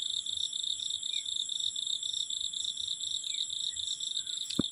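Insects, crickets among them, trilling in a steady high-pitched chorus with a rapid pulse. A single sharp knock near the end.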